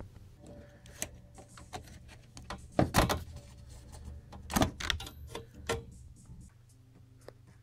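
Teardown handling noise: a run of clicks and clatter with two loud knocks, about three seconds in and again about four and a half seconds in, over a low steady hum that drops off about six and a half seconds in.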